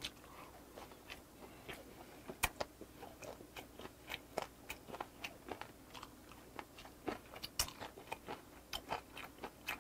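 Close-miked chewing of a mouthful of fermented skate (hongeo): many short, irregular wet clicks and crunches of the mouth, with two sharper clicks about two and a half and seven and a half seconds in.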